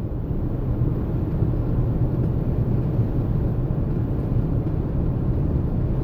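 Dodge Charger at about 60 mph, heard inside the cabin: steady road and running noise with a constant low drone. It carries an unidentified noise from the front passenger side that the driver thinks may be the struts, shocks or stabilizer bar bushings.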